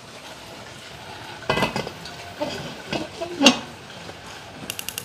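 Kitchen pots and utensils clattering and clinking while being handled and put away: a few separate knocks, the loudest about three and a half seconds in. Near the end a fast, even ticking begins.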